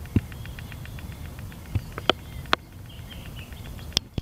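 Insects chirping in a fast, even train of short high pulses. Several sharp knocks of camera handling sound over a low rumble.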